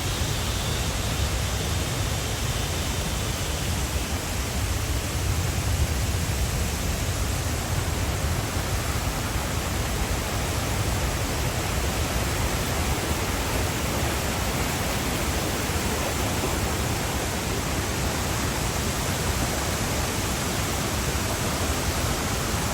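Waterfall rushing steadily: an even, unbroken noise of falling water with a deep low rumble.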